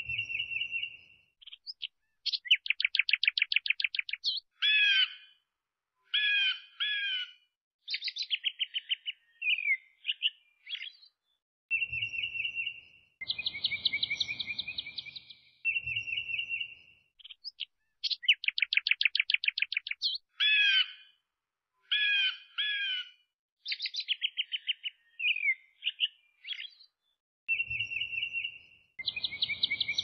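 A songbird singing fast, high trills and chirps. The same sequence of phrases comes round again about every 16 seconds.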